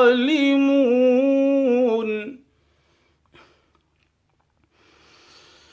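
Male voice reciting the Quran in a slow, melodic chant, holding one long drawn-out phrase that ends about two seconds in. After a pause there is a faint click, and then a soft intake of breath near the end.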